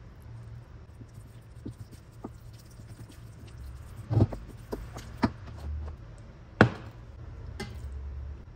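Silicone spatula stirring thick, cheesy pumpkin risotto in a stainless steel pot, with several sharp knocks of the utensil against the pot, the loudest about six and a half seconds in.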